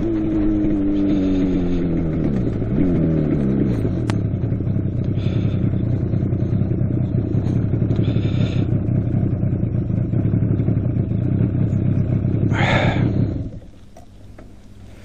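Honda CB750 inline-four motorcycle engine slowing as the bike decelerates to a stop, its pitch falling over the first few seconds, then idling steadily. The sound drops away suddenly near the end.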